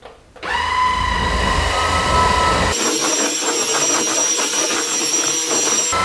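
Cordless stick vacuum with a brushless motor and motorized floor brush switching on about half a second in and running with a steady whine. Partway through, the sound changes abruptly to a higher-pitched whine with a fast rattle.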